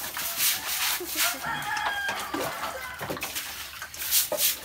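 A rooster crowing in the background, over the swish and splash of a stiff stick broom scrubbing a wet concrete pig-pen floor.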